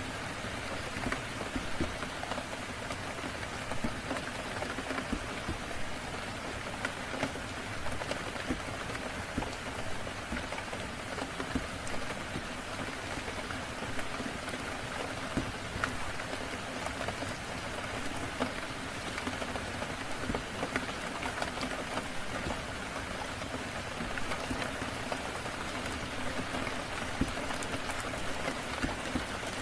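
Steady rain falling, an even hiss with many small sharp ticks of drops scattered through it.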